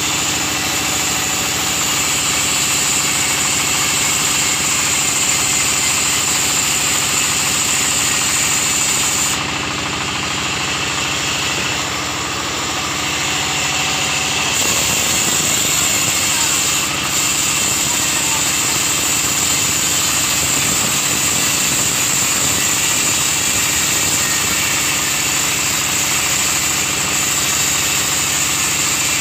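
Sawmill band saw running steadily, its blade cutting teak planks with a loud, even machine drone and a high hiss. The high hiss drops away for about five seconds about ten seconds in, then returns.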